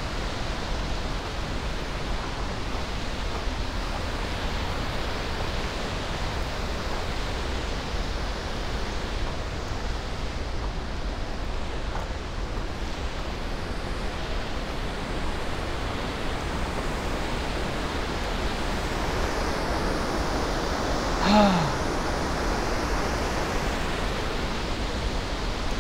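Steady rush of a fast mountain river close by, an even wash of noise with no break. About twenty seconds in, a person's short voiced sound falls in pitch over it.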